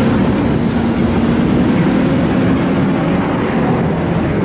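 Steady low rumble of a running vehicle engine, with faint scraping as a hand-held steel scraper is pushed along a cleaver's blade to shave the edge.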